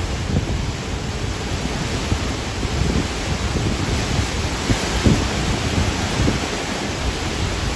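Hurricane winds gusting: a steady hiss of wind and rain, with constant low buffeting of the wind on the microphone.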